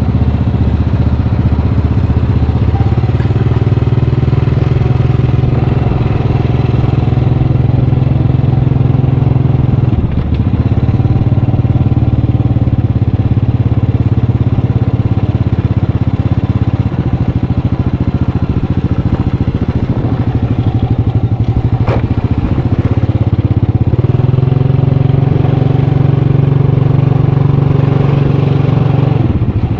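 Motorcycle engine running steadily under way, its note dipping briefly about ten seconds in and again near the end, and rising a little past two-thirds of the way through. A single sharp click sounds a little after twenty seconds.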